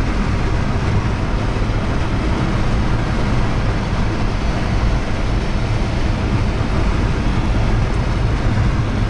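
Steady road and engine noise heard inside a moving car's cabin, a constant low rumble with no breaks.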